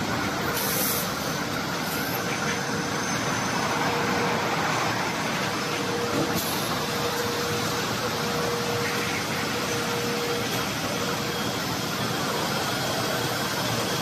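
Glass jar handling line running in a factory hall: a steady machine hum with a constant mid tone. There are short air hisses about a second in and again about six seconds in.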